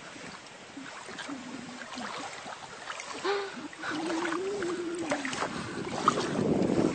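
Shallow water lapping and sloshing around a pug's dangling paws, getting louder near the end. A drawn-out wavering whine rises and falls partway through.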